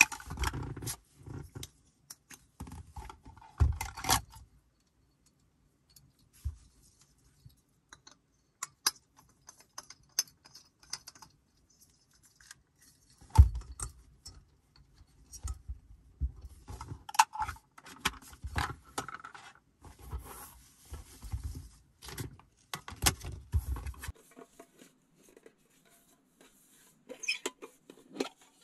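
Small objects being handled and set down: scattered clicks, light knocks and rustling, in two busy spells with quieter stretches between.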